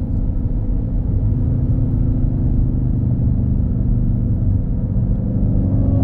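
Supercharged 6.2-litre HEMI V8 of a Dodge Charger Hellcat breathing through a Legmaker cold air intake with the JLT airbox, heard from inside the cabin: a steady low rumble at low revs and light throttle, with the engine note starting to rise near the end as it pulls again.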